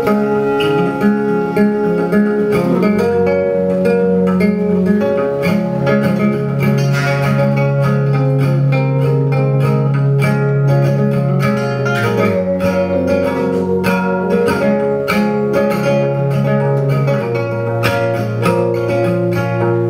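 Instrumental passage of live acoustic music: two acoustic guitars played together over long held low notes from a Yamaha keyboard.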